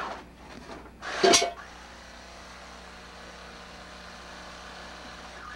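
A single sharp knock about a second in, over a steady low hum.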